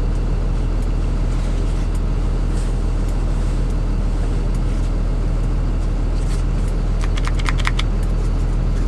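A steady low engine hum, with a quick run of sharp clicks about seven seconds in.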